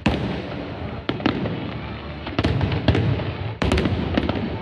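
Aerial fireworks bursting in quick succession: sharp bangs roughly every half second to second, some in close pairs, over a continuous crackle and low rumble.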